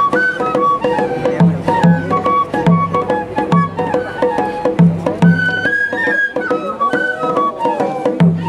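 Japanese festival hayashi music: shinobue bamboo flutes playing a stepping melody over low taiko drum strokes, with sharp clicking percussion.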